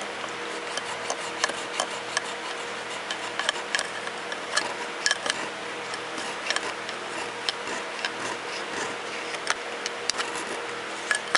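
Hand file cutting file work into a blade's metal bolster: short scraping strokes, irregular, about two a second, over a steady low hum.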